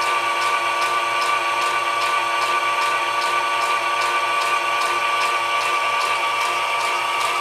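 Super 8 film projector converted to run at about three frames per second, running steadily: a constant motor whine with a light tick about three times a second as the film is advanced frame by frame.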